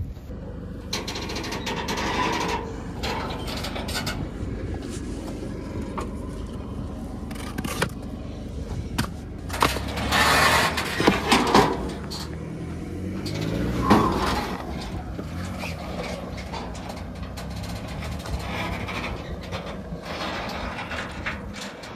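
A Chevy Colorado's 2.8-litre Duramax diesel running under load while it tows a loaded car trailer up rock ledges, with rock scraping and knocking against rock. Around the middle comes a run of loud scrapes and knocks, then the engine's pitch rises once.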